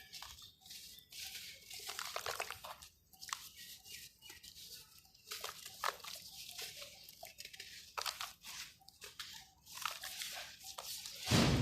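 Dry, dusty dirt and stone clumps crumbling into water, with irregular crunching and crackling, and one much louder thump near the end.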